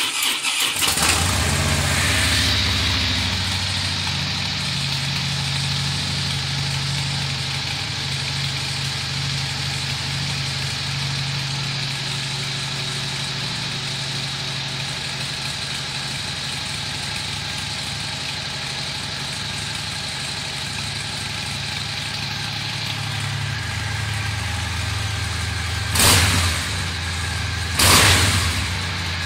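2013 Harley-Davidson Fat Bob's 103-cubic-inch V-twin on its bone-stock exhaust, idling just after a cold start at about 25 °F, having sat unstarted for three to four weeks. The idle settles within the first couple of seconds and then runs steady, with two short revs near the end.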